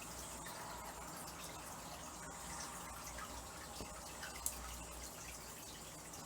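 Faint, steady rubbing of a dry microfiber cloth being wiped across a TV's LCD panel, with a few light ticks and one small click about four and a half seconds in.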